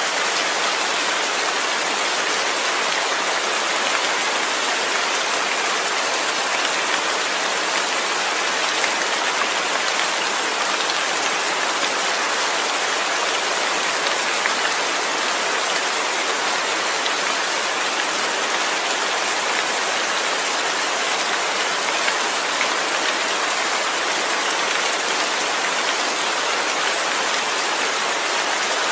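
Steady rain falling and pattering on surfaces, an even hiss with no letup.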